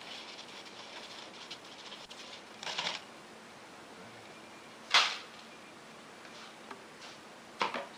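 Gravel and sand concentrates being shaken through a small kitchen mesh sieve: short bursts of gritty rattling, with a sharp knock about five seconds in and another near the end.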